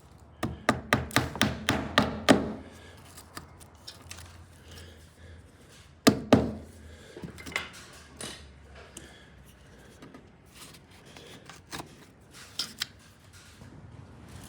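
Wood splinters being tapped into old screw holes in a door jamb: a quick run of about ten sharp wooden knocks, about five a second and growing louder, then one loud knock about six seconds in, followed by scattered lighter taps and clicks.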